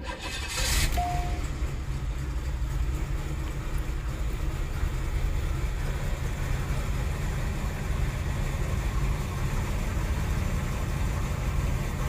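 Cadillac DeVille's 4.9 L V8 starting a little under a second in, then idling steadily. The engine is starved of fuel and runs lean.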